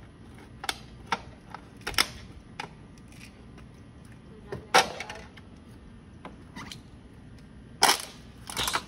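Handling noise: a scatter of about eight sharp clicks and taps at irregular intervals, as a plastic cup and a toy ride-on car are handled. The loudest taps come about five and eight seconds in.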